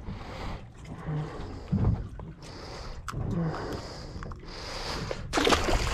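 Water and wind noise around a small fishing boat, with a few short knocks from handling a juvenile amberjack while unhooking it. A louder rush of noise comes near the end.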